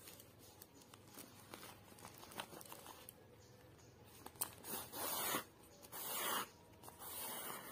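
Yarn pulled through a woven plastic sack with a needle: three scratchy swishes in the second half, each about half a second long, with light scratches and ticks before them.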